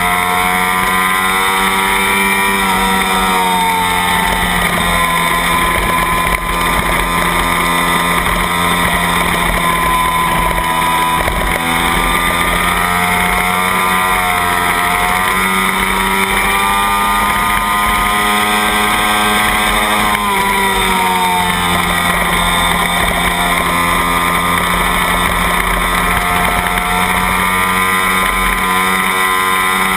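Kawasaki Ninja race bike's parallel-twin engine running hard at high revs. Its pitch drops a few times as it shifts down and slows for corners, then climbs again as it accelerates out, over a steady rush of wind.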